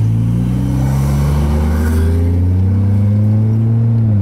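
Car engine accelerating, heard from inside the cabin: a steady engine note climbing slowly in pitch, then dropping suddenly right at the end as the transmission shifts up.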